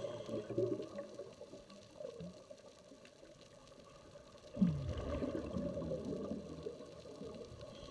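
Underwater sound of scuba divers breathing through regulators: irregular rushes of exhaled bubbles, with the loudest burst starting about four and a half seconds in.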